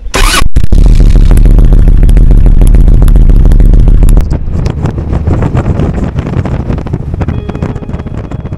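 Motorcycle on the move: engine and rushing wind noise, very loud and distorted. It drops in level about four seconds in and carries on steadily.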